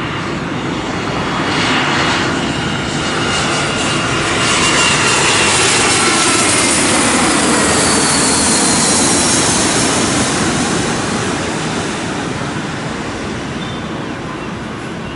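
Vietnam Airlines narrow-body twin-jet airliner passing low overhead on approach with its landing gear down. Its jet noise swells, peaks about halfway through with an engine whine falling in pitch as it goes by, then slowly fades.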